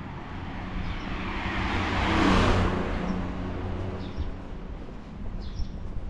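A car driving past. Its tyre and engine noise swells to a peak about two seconds in, then fades away.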